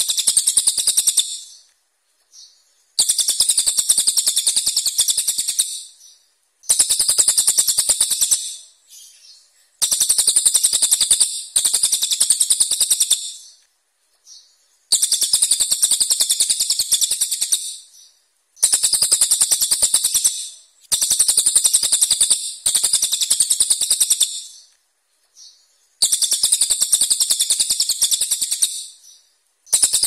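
Brown cililin (a caged songbird) singing in harsh, sharp rapid-fire bursts of high-pitched notes. Each burst lasts two to three seconds, with short pauses between, about eight times over.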